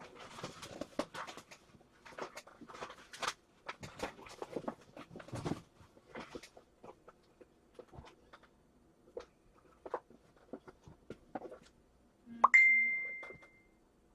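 Trading card packs and cards being handled, with quick crinkling and clicking for the first several seconds, then scattered light taps. Near the end, one bright chime rings out and fades over about a second and a half.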